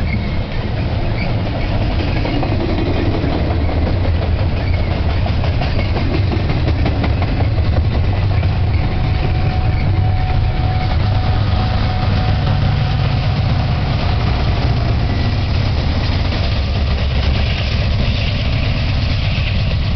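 Freight train passing: double-stack container cars rolling by with wheel clatter, then the train's rear distributed-power BNSF diesel locomotives going by with a deep, steady engine rumble.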